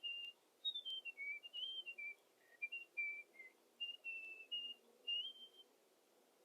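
A tune whistled in clear, high single notes, some held and some sliding up or down into the next, for about five and a half seconds.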